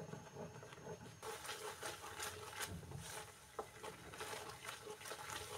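Wooden spatula stirring and scraping thickened, reducing milk (mawa being made) around a nonstick kadhai: faint, irregular soft scrapes from about a second in.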